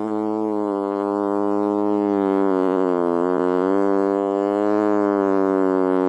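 A single long, held musical note rich in overtones, its pitch wavering slightly.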